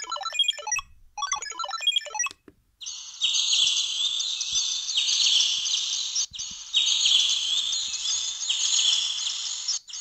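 Samsung SGH-T400's polyphonic 'Bird' ringtone playing from the phone's speaker: a dense run of synthesized bird chirps and trills that starts about three seconds in, breaks briefly midway and cuts off near the end. Before it, the last two seconds of the 'Count' ringtone, a quick run of electronic beeping notes.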